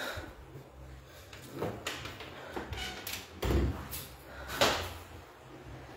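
The small metal door of a dental sterilizer cabinet being pulled open, with a few knocks and clanks. The loudest is a dull thump about three and a half seconds in, followed by a sharp clack a second later.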